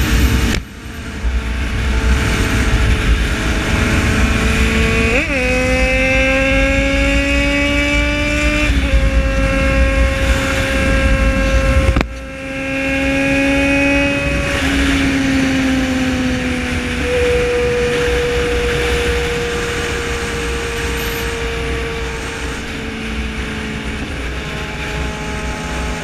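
Yamaha XJ6 motorcycle's inline-four engine running at highway speed with wind rumble on the microphone; its pitch climbs steadily for a few seconds as the bike accelerates, then holds level. The sound drops briefly just after the start and again about twelve seconds in.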